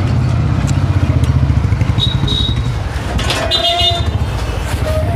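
A small engine idling close by with a steady low throb. Two short high tones sound about two seconds in and again around three and a half seconds in.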